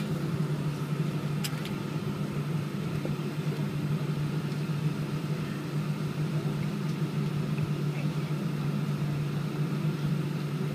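Boeing 777-200's jet engines at idle thrust while the airliner taxis, heard from inside the cabin as a steady low drone with a faint hiss above it. A single light click sounds about a second and a half in.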